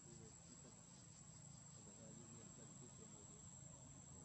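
Near silence, with a faint steady high-pitched insect trill in the background.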